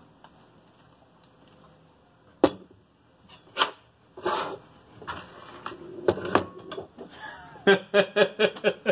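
Handling noise on a workbench. A sharp knock about two and a half seconds in, as a glass olive-oil bottle is set down, is followed by scattered clunks of utensils and a bowl being moved, and a quick run of short taps near the end.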